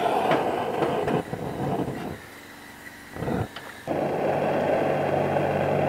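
Handheld propane torch blowing its flame into the bottom of a charcoal chimney to light the briquettes: a steady hiss that drops away about two seconds in. About four seconds in a steadier, louder rushing noise with a low hum starts and keeps going.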